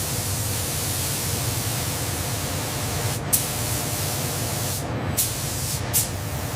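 Spray gun hissing steadily as it applies coating to armor plate, with a low rumble beneath and a few short, louder spurts.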